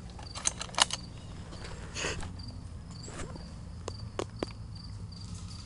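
Scattered sharp pops of airsoft guns firing: a quick cluster about a second in and a few more later. A faint high insect chirping pulses steadily underneath.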